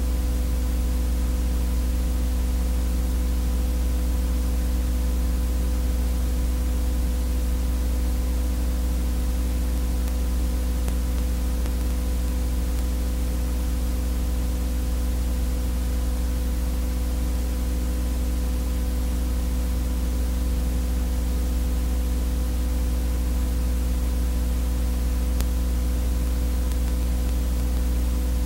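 Steady electrical buzz over hiss: a low hum with a ladder of fainter, higher fixed tones. It is transfer noise on the track of a silent 8mm home movie, with no sound from the scene itself.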